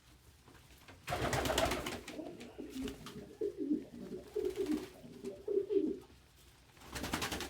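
Domestic pigeons cooing, a run of low coos through the middle, with a short noisy flurry about a second in and another near the end.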